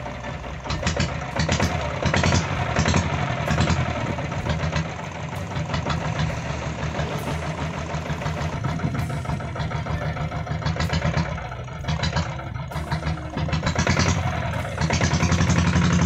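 Diesel engine of a converted Royal Enfield Bullet motorcycle running, with a continuous clatter. It gets louder about fifteen seconds in.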